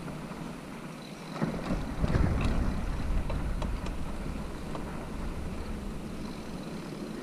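Bicycle rolling along a paved road: tyre and road rumble with wind on the action-camera microphone. Between about one and a half and three seconds in it gets louder, with rattles and small knocks as the bike crosses a raised crosswalk.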